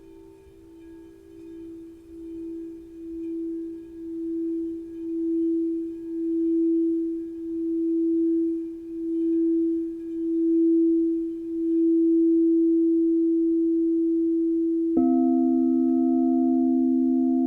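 Crystal singing bowl sounding one pure, sustained tone that swells gradually louder with a slow pulsing waver about once a second. Near the end a second, lower-pitched crystal bowl comes in suddenly and rings on together with the first.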